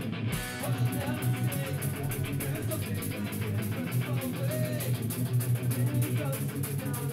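A live rock band playing: electric guitars and bass guitar, with the drums and cymbals joining just after the start to fill out the full band. A singer's voice wavers over the top.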